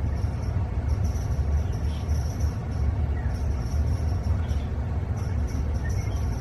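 A steady low rumble, with faint high tones coming and going above it.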